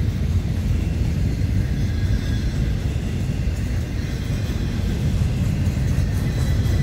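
Double-stack intermodal well cars rolling past on the track: a steady low rumble of steel wheels on the rails.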